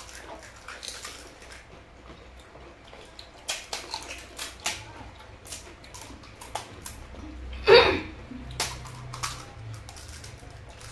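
Crisp fuchka (pani puri) shells being cracked open by hand and crunched while eating: scattered sharp crackles and clicks, with one louder burst of mouth noise about three-quarters of the way through.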